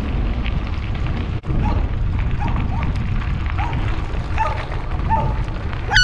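Wind buffeting the microphone over bicycle tyres rolling on gravel, a steady low rumble, with a few faint short dog barks. A loud air horn blast starts right at the end.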